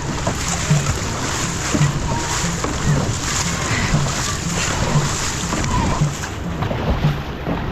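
Dragon boat crew paddling at a steady race pace, with a low thud about once a second in time with the strokes. Water splashes and rushes under a steady noise of wind and water.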